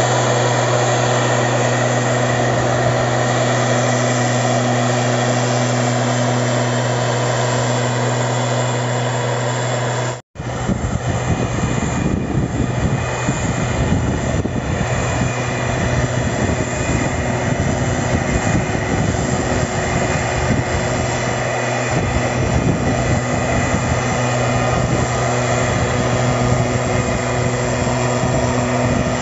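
STIHL SR 420 backpack mist blower running steadily: its small two-stroke engine drones evenly alongside the rushing air of the blower fan as it sprays. About ten seconds in, the sound cuts out for an instant and then carries on with a heavier low rumble.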